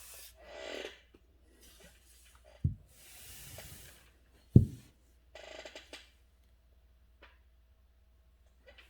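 Paper rustling and brushing as calligraphy paper and tools are handled, with two dull thumps about two seconds apart, the second the louder.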